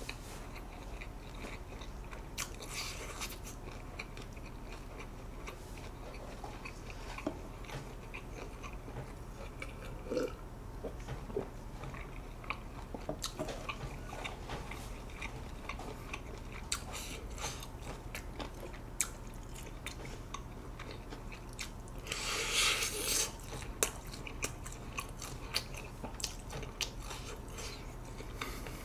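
Close-miked chewing and biting of tough grilled pork rib meat, with scattered small clicks and mouth noises over a low steady hum; a louder, noisier burst comes about three-quarters of the way through.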